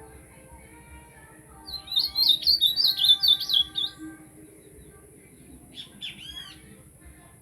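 A bicudo singing a fast burst of high, rapidly repeated notes for about two seconds, then giving a few short calls near the end, over faint background music.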